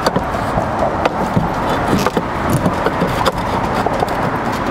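Cut concrete S-tiles knocking and scraping against each other a few times as they are test-fitted by hand at the top of the rake, over a steady hum of road traffic.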